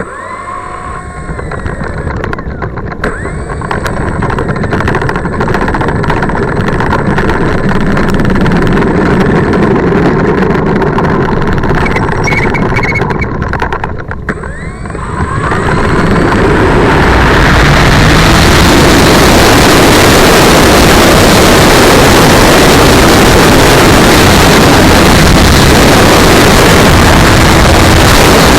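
Electric motor and propeller of an E-flite T-28 1.1 m RC plane running up with rising whines, getting louder. Near halfway it dips briefly, then turns into a very loud, even rush of noise that drowns everything else.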